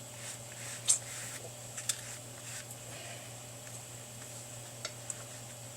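Light handling noises, a few soft clicks and rustles, as a new foam surround is squeezed onto a car speaker's cone and frame, over a steady low hum.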